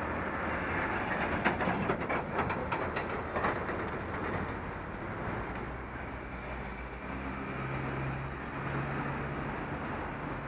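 Road noise recorded from a bicycle in city traffic: a steady rumble of passing traffic and wind on the microphone, with a run of clicks and rattles over the first few seconds. Later a vehicle engine's low hum rises above the rumble for a couple of seconds.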